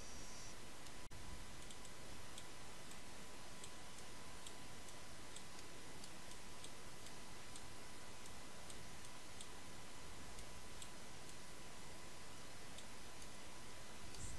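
Faint computer mouse clicks, irregular, roughly one or two a second, over a low steady hiss with a faint thin tone.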